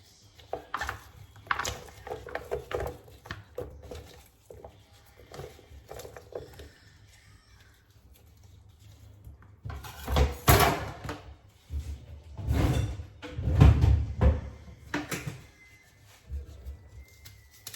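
Kitchen knife chopping an onion: a run of irregular knocks and cutting sounds, heavier and louder for a few seconds in the middle.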